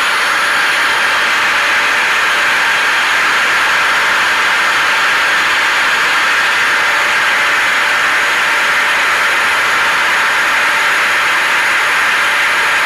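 Steady, unchanging white-noise blend of a hair dryer and a vacuum cleaner running together, a loud even rush with a faint motor hum underneath.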